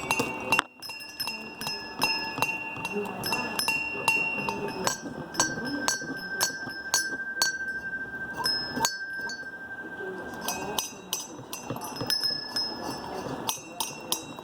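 Bells rung in Russian Orthodox style: quick, irregular strikes, with several high ringing tones hanging on between the strikes.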